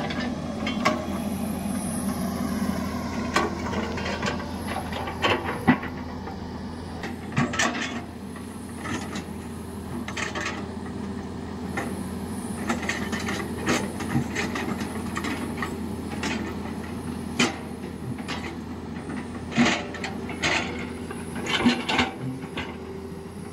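Tata Hitachi hydraulic excavator's diesel engine running steadily under load while it scoops sand and swings its bucket over a tipper truck. Irregular sharp knocks and clanks from the bucket and the truck's steel body ring out over the engine throughout.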